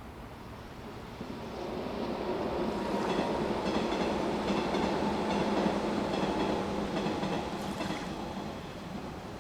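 A train passing by, its wheels clacking rhythmically over rail joints; it grows louder over a couple of seconds, holds for several seconds, then fades away.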